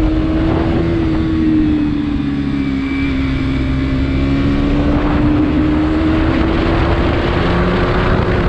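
KTM Duke 200's single-cylinder engine running under way on the move, its note sagging a little about two seconds in and then slowly climbing. Heavy wind rush on the microphone runs underneath.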